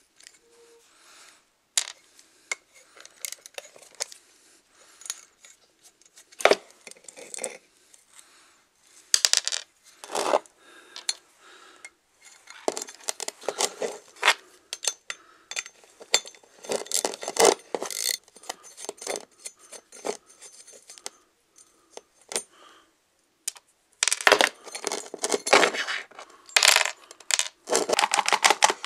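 Short, sharp metallic clinks and scrapes of hand tools on an antique clothes iron being taken apart: a ratchet wrench and pliers working its nuts and studs, and loose metal parts knocking together. They come in bursts with short pauses between them.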